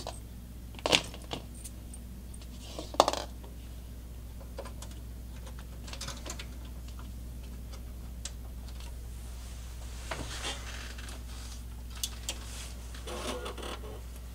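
Scattered clicks and knocks of cable plugs and the power cord being pushed into the back of a desktop PC. The two sharpest clicks come about one and three seconds in, with lighter ones later.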